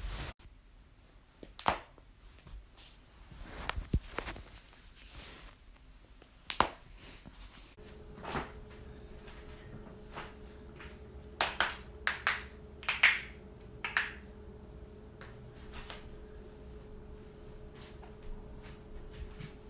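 Human joints cracking during manual adjustments: a series of short, sharp pops at irregular intervals, with several close together around the middle, over a faint steady hum in the later part.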